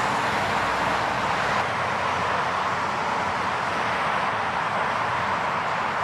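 Steady road traffic noise, a continuous hiss of cars on a wet road; a low rumble underneath drops out about a second and a half in.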